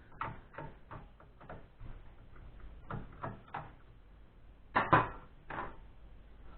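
Irregular clicks and knocks of computer parts being handled and pulled apart while an HP compact desktop PC is dismantled, with a louder double knock about five seconds in.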